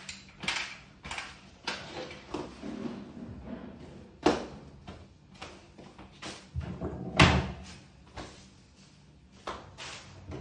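Scattered knocks and clatters of hard objects being handled during ceiling work, with two louder knocks about four and seven seconds in.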